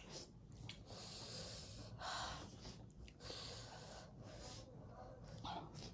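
A person breathing hard in and out through the mouth and sniffing, a series of faint short breaths, from the burn of very spicy noodles.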